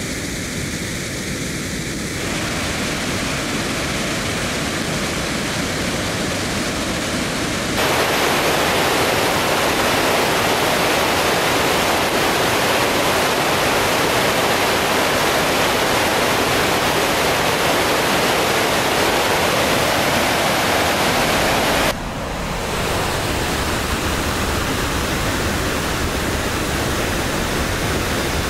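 Reservoir bellmouth overflow spillway in full flood: water pouring over the rim and down the shaft in a steady rush. It gets louder and brighter about eight seconds in, then drops back suddenly about twenty-two seconds in.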